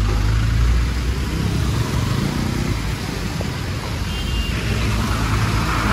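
Bus engine running steadily under a steady hiss of rain and wet road noise, with a brief faint high tone about four seconds in.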